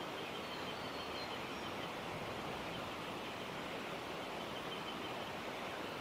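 Steady outdoor background noise, an even hiss, with faint thin high-pitched calls repeating in the distance.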